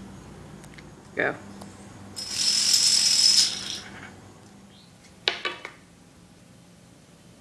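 Plastic toy dominoes toppling in a chain onto a concrete floor, a dense rapid clatter lasting about a second and a half. A short sharp clack follows a couple of seconds later.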